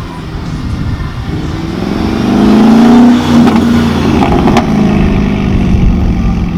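A high-performance car's engine accelerating hard, its pitch climbing to a loud peak about three seconds in and then holding, with a single sharp crack partway through.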